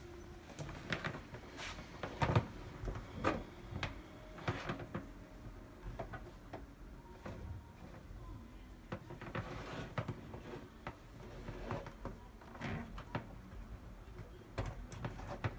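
Scattered light clicks and knocks of handling as a power cord is connected at the back of a Kangen K8 water ionizer.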